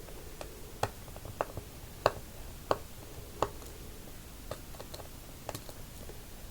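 Irregular small, sharp clicks and taps of a precision screwdriver and tiny screws against the internal metal frame of an iPod touch 4th generation while its screws are being removed. The loudest clicks come in the first three seconds or so, with fainter ones later.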